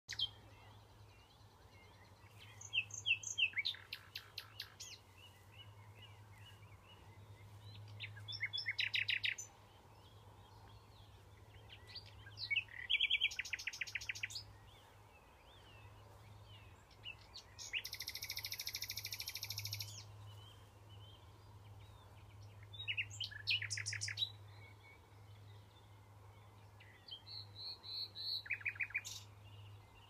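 Common nightingale singing: about six phrases of rapid repeated notes and trills, separated by pauses of a few seconds, one of them a longer held phrase past the middle.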